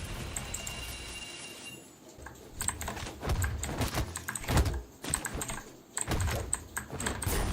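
Typing on a Vortexseries VX8 mechanical keyboard with stock blue switches: quick runs of clicky keystrokes starting about two seconds in, with a short break near six seconds.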